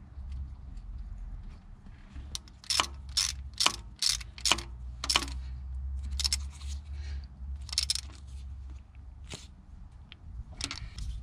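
Sharp metallic clicks and clinks of hand tools on metal, irregular at about two a second and loudest in the middle, as the water pump's bolts are fitted and tightened. A steady low hum runs underneath.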